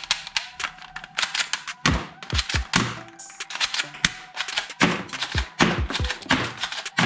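Plastic toy guns knocking and clicking together as they are handled in a cardboard box: a quick, uneven run of sharp taps and thunks.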